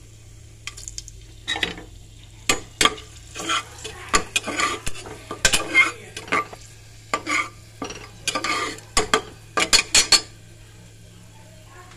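Metal ladle stirring and scraping whole spices frying in oil in an aluminium pressure cooker, in irregular clinking strokes that stop near the end.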